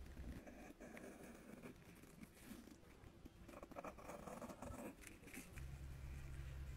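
Faint scraping and scratching of a metal spatula tool digging soft pressed makeup out of the metal pans of a Dior compact. A low steady hum comes in about five and a half seconds in.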